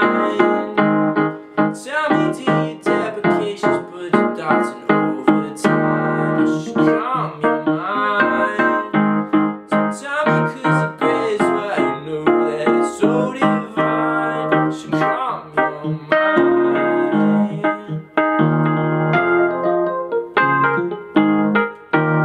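Solo piano playing on a digital keyboard: a busy instrumental passage of repeated struck chords with a melody over them, several notes a second.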